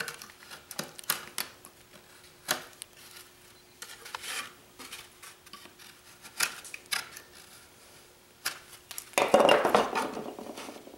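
Scattered light clicks and short scrapes of a knife working at a lump of glue on a basswood canoe hull. About nine seconds in comes a louder, longer scraping rustle of the wooden hull being handled and set down on the workbench.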